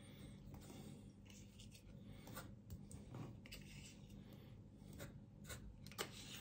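Faint handling sounds: soft rustles and light ticks as a small plastic dip pot is squeezed and sauce dabbed onto pizza in a cardboard box.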